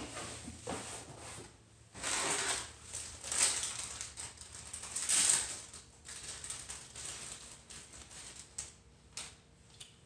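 Packaging rustling and crinkling in a few short bursts as small parts are taken out of a box by hand, loudest about five seconds in.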